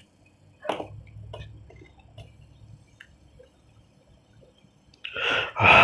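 Fidget spinner being handled: a single knock, then a faint low whir dying away and scattered light clicks. Near the end comes a loud breathy vocal exclamation.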